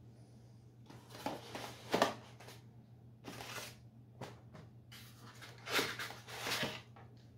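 Plastic bag rustling and crinkling with small knocks as a power adapter is handled and pulled out of its packaging, in bursts with a pause between, over a faint steady hum.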